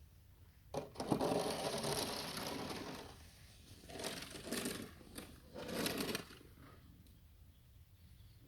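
Snow shovel scraping and pushing through snow: one long stroke about a second in, then two shorter ones.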